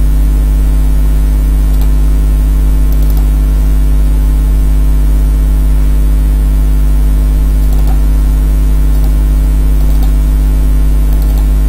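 A steady, loud low hum that does not change, with a few faint clicks.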